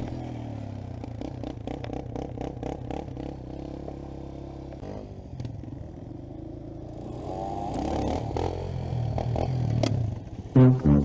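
Four-wheeler (ATV) engine running, with a brief rise in revs about seven to eight seconds in.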